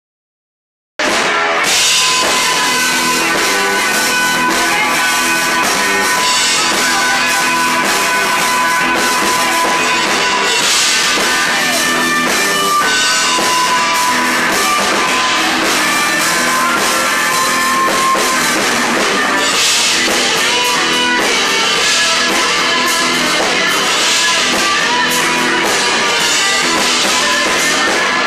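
Live rock band playing loud, with electric guitars and a drum kit; the music cuts in abruptly about a second in.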